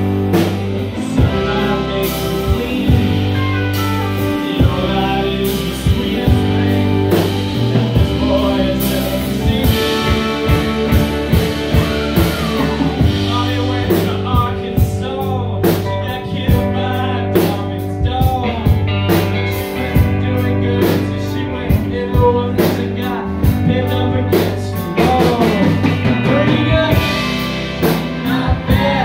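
A live band playing a song with electric guitars, pedal steel guitar and a steady drum beat, and a voice singing over it.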